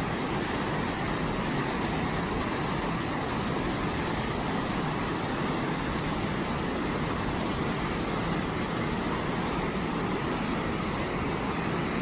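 Waterfall pouring into a pool and the river rapids below it: a steady, unbroken rush of water.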